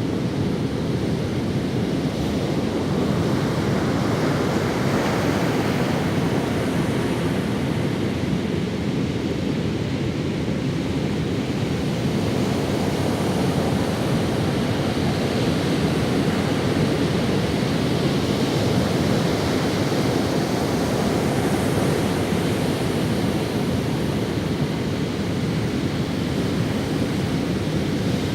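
Ocean waves breaking and washing up on a sandy beach, a steady rumbling surf with slow swells of hiss as waves wash in.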